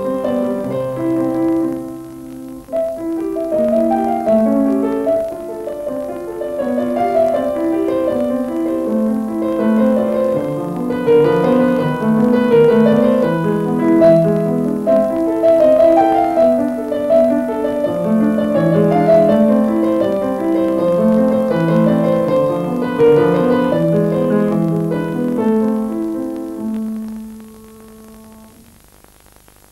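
Piano music, a flowing run of notes and chords that fades out near the end.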